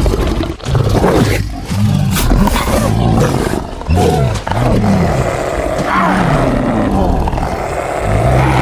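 Angry wolf sound effect: deep, rough growls that rise and fall in pitch, one after another with barely a break.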